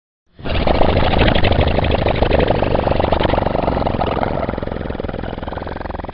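A long comic fart sound effect: a loud, rapidly fluttering rasp that starts suddenly out of silence and slowly fades over several seconds.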